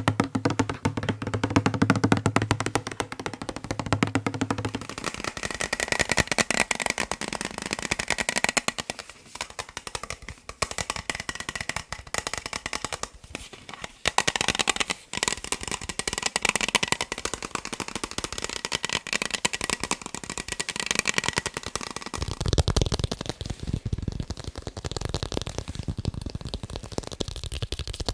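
Rapid tapping close to the microphone, many fast taps a second, moving from one object to another. The character changes about five seconds in, and again near the end, when a deep rumbling handling sound joins the taps.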